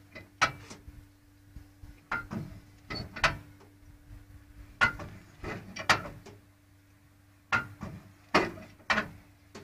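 Starting handle of a Morris Oxford being cranked by hand to turn the engine over. It gives a series of sharp, irregularly spaced metal clicks and clunks as the handle engages and turns.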